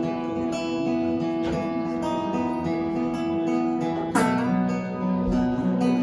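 Acoustic guitar playing a song's instrumental intro, strummed chords ringing out, with a hard strum and chord change about four seconds in.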